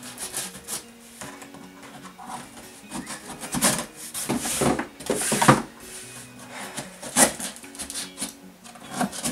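Scissors cutting and scraping along the packing tape of a cardboard box, with the cardboard rubbing and rustling under the hands, in irregular strokes that are loudest a little past the middle and again later. Soft background music plays underneath.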